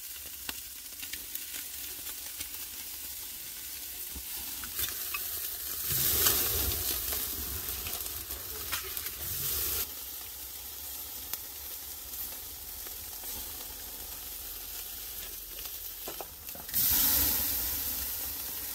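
Marinated meat sizzling in a wire grill basket over glowing charcoal as a ketchup-based basting sauce is brushed on. The sizzle surges louder about six seconds in, and again near the end as flames flare up under the grill.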